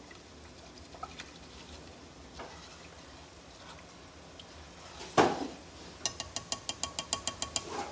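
A spoon knocks once against a saucepan of rice about five seconds in, with a few faint clicks of stirring before it. Near the end a rapid, even ticking runs for about two seconds.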